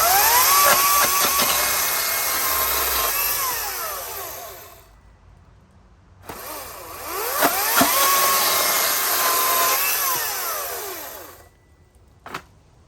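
Ryobi 40V HP 18-inch battery chainsaw cutting through a 2x6 board in two runs, each spinning up with a rising whine, holding steady for a few seconds and winding down, with a short pause between them.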